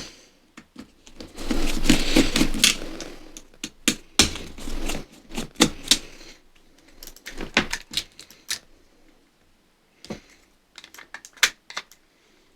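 Small plastic parts of a computer mouse clicking, tapping and scraping as it is taken apart: irregular sharp clicks, with rougher scraping stretches in the first half and scattered clicks after a short pause.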